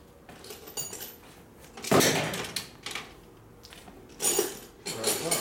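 Steel hand tools and parts clinking and clanking as they are handled, with the loudest clank about two seconds in and a few more clinks near the end.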